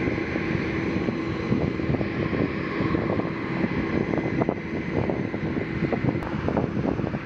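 Steady jet aircraft noise on an airport apron with a constant whine, mixed with wind rumbling and crackling on the microphone.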